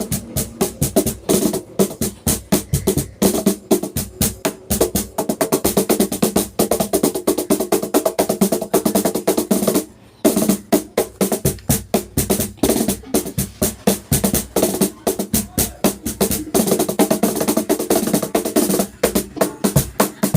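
Cajon being played by hand in a fast, busy rhythm of sharp slaps and deeper bass strikes, with a short break about halfway through.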